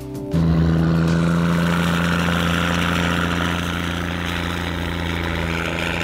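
Prinoth snowcat's heavy diesel engine running steadily at an even pitch while towing a truck through deep snow, cutting in suddenly just after the start as music stops.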